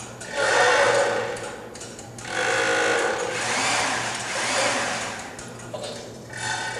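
Interactive mechanical sound installation running: its devices whir and rattle in swells that rise and fall about every two seconds, over a steady low hum.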